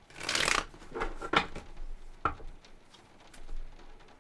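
A deck of tarot cards being shuffled in a short rustling burst, followed by two sharp taps about a second apart as the cards are handled.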